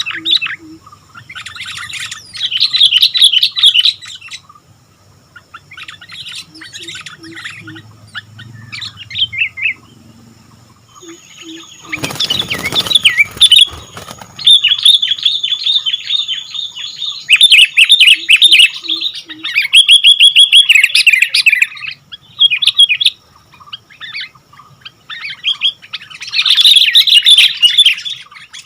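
Sooty-headed bulbul singing in repeated quick chattering phrases with short pauses between them, with a brief noisy burst about twelve seconds in.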